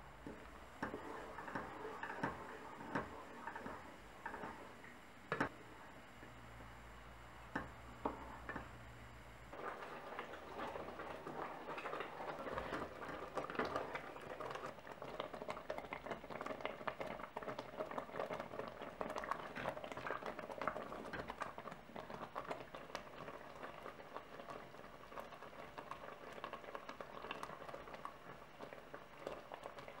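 Wooden spoon stirring sugared strawberries in a pot, with a few sharp knocks against the pot, the loudest about five seconds in. After about ten seconds the strawberry mixture is simmering, bubbling and popping steadily as it cooks down.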